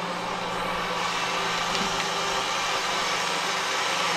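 Chainsaw running steadily at high speed, cutting through a tree limb.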